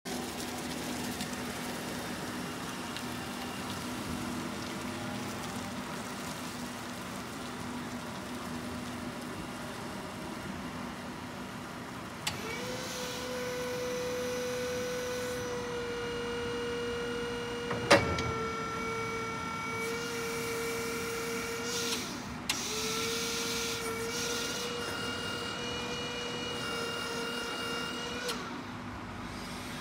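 Toyota 2FBE10 battery-electric forklift: a low steady hum while it drives, then the electric hydraulic pump motor whining steadily as the mast raises the pallet, in two long runs, each switched on and off with a click. A single sharp, loud clunk comes partway through the first run.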